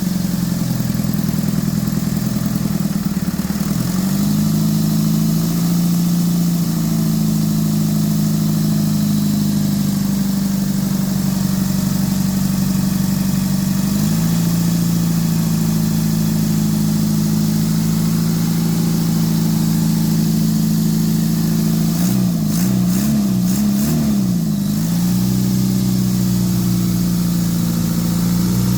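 Isuzu 4BC2 four-cylinder diesel engine running at idle with its injection pump freshly cleaned and set. Its speed steps slightly a few times and wavers up and down for a few seconds about 22 seconds in.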